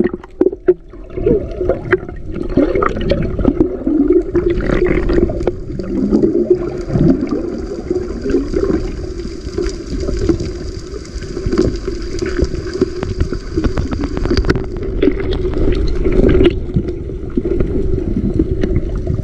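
Muffled underwater water noise picked up by a submerged camera: a steady gurgling rush with many small knocks.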